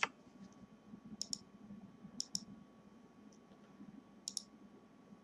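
Computer mouse clicking: short sharp clicks in three close pairs spread over a few seconds, over a faint steady hum.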